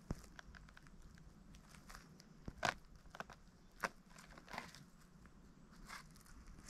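Dry twigs and leaf litter crackling and snapping in scattered, irregular crunches, with a sharp snap just after the start and louder crunches about two and a half and four seconds in.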